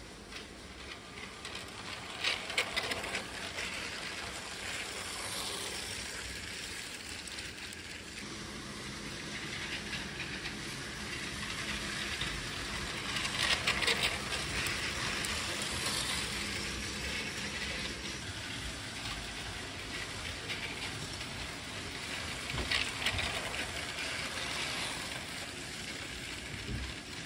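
Motorized Lego trains rolling on plastic Lego track, a steady light rattle of wheels and motors with clicking as wheels pass the track joints. It grows louder as a train passes close by about halfway through, and there are briefer louder clicking spells a couple of seconds in and near the end.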